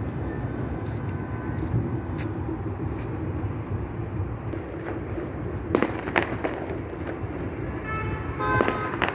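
Steady low rumble of distant road traffic, with a few sharp clicks midway and a brief high tone near the end.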